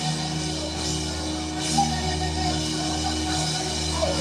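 Instrumental worship music: the band holds sustained chords over a steady low bass, with a faint melody line above and no singing.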